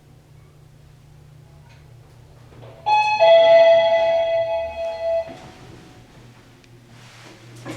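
Hitachi BUIL-ACE NewPULIDO elevator's arrival chime signalling arrival at a floor: two notes, high then low, about three seconds in, with the low note ringing out for about two seconds. On this car the chime pitch differs from floor to floor. A low steady hum runs underneath.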